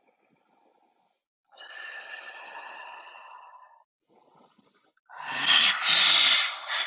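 A person's deliberate yogic breathing, close to the microphone: a long inhale, then a loud exhale about five seconds in.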